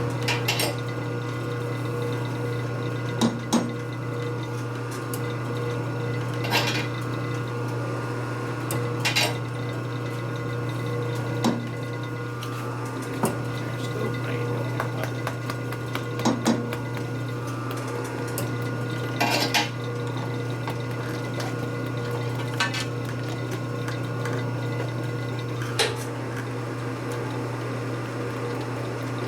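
Metal parts and tools clinking and knocking about ten times, spread out, over a steady machine hum.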